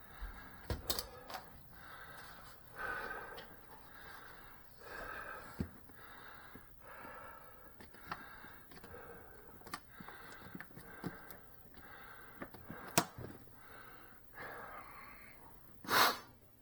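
A person breathing heavily close to the microphone, a breath about every two seconds, with scattered clicks and knocks of handling; the loudest knocks come about 13 and 16 seconds in.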